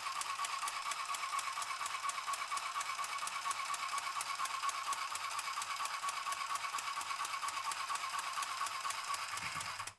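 Mini craft sewing machine running steadily, stitching through paper or card: a constant whirring hum with rapid, even needle ticks that stops suddenly near the end.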